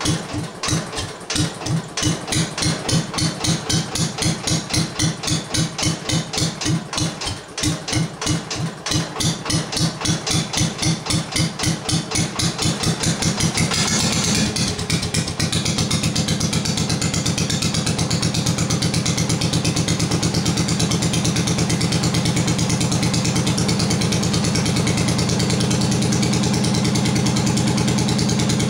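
The 9 hp single-cylinder Briggs & Stratton 23D engine of an Allis-Chalmers B-10 garden tractor at a very low idle through a new 2-inch stainless steel straight exhaust stack, each exhaust pulse heard separately, a few a second. About fourteen seconds in it picks up to a faster, steady idle.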